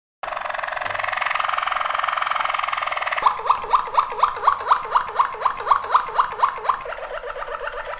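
Malinois waterslager canary singing. It opens with a fast rolling trill, switches about three seconds in to a run of rising notes at about four a second, and near the end moves to a faster, softer series of notes.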